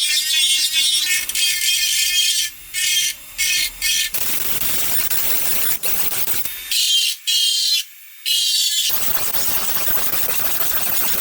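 Harsh scraping and grinding from tool work, in stretches that cut off and start again abruptly several times.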